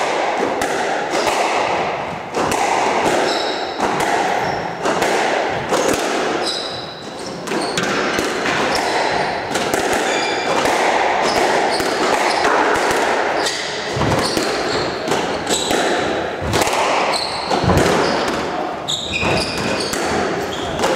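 Squash rally: the ball is struck by rackets and smacks off the court walls in quick, uneven knocks. Shoes squeak sharply on the wooden floor, and there are a few deeper thuds from footwork in the later part.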